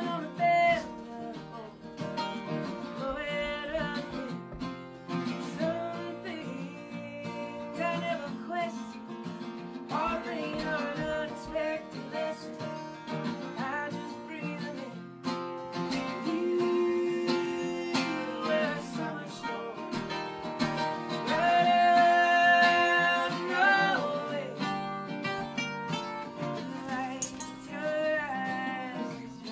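Live folk song: an acoustic guitar strummed and an octave mandolin picked, with singing over them. A long sung note is held a bit past two-thirds of the way through, the loudest moment.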